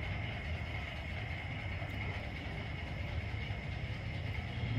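Steady low rumble of outdoor street background noise, with a faint steady high-pitched tone above it and no distinct events.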